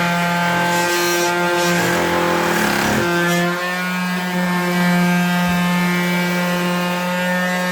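Electric sander running at a steady pitch on wood, with a rougher scratching stretch about two to three seconds in.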